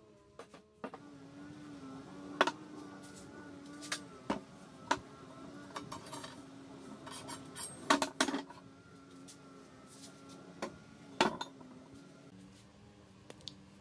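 Steel bars and a steel tube being handled and laid down on a wooden workbench: a series of sharp metallic clinks and knocks, the loudest about eight and eleven seconds in.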